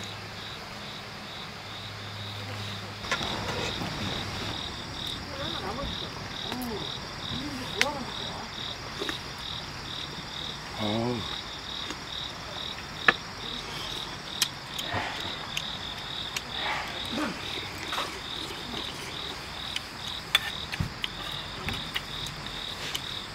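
Insects chirping in a steady, even pulse, about two chirps a second, over a steady high hiss, with scattered sharp clinks of spoons against metal camp bowls.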